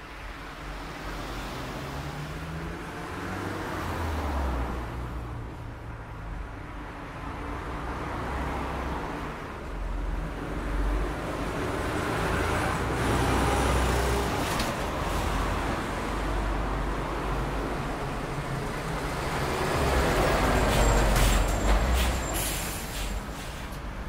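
Rush-hour city street traffic: cars and heavier vehicles passing and pulling away, with a low engine rumble and engine notes rising as they accelerate. It swells several times, loudest near the end, where a few short, sharp hisses come through.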